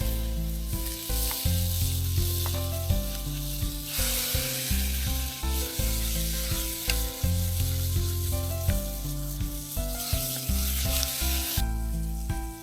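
Food sizzling as it fries in a pan, stirred now and then; the hiss swells and fades, dropping away near the end.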